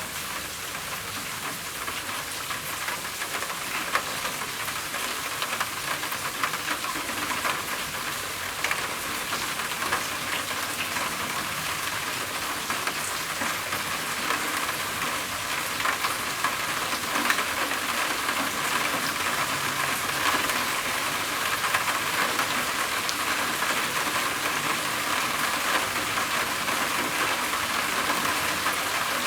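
Rain falling on a roof: a steady hiss with many individual drops ticking through it, growing a little louder about halfway through.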